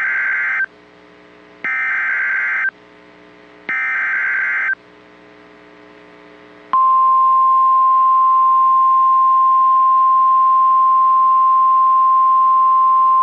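NOAA Weather Radio Emergency Alert System signal: three short bursts of SAME digital header data, each about a second long and a second apart, then about seven seconds in the single steady warning alarm tone begins and holds. It announces a severe thunderstorm warning about to be read.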